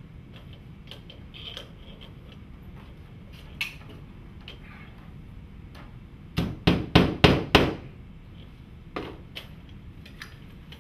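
Hammer blows on a faux stone cladding panel being fixed to the wall: about five quick strikes in just over a second, some six seconds in, with a few lighter knocks and clicks before and after.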